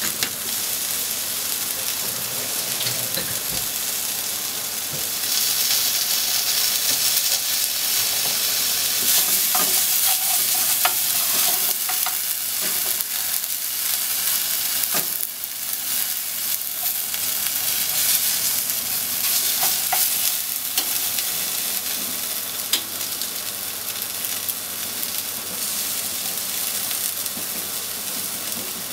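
Scallop mantle strips sizzling in oil in a nonstick frying pan, a steady frying hiss, with a few short clicks of chopsticks against the pan as the strips are stirred.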